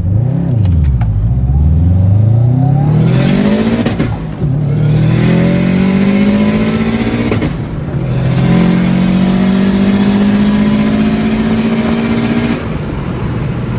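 2005 Subaru WRX's turbocharged flat-four engine on a full-throttle acceleration pull through the gears. The revs climb, drop at a gear shift about four seconds in, climb again, drop at a second shift near eight seconds, climb once more, and fall away as the throttle is lifted near the end.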